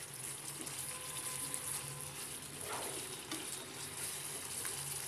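Eggplant pieces in a thick yogurt-onion masala gravy sizzling steadily in a non-stick frying pan. A wooden spatula stirs and turns them, with faint ticks and a short scrape nearly three seconds in.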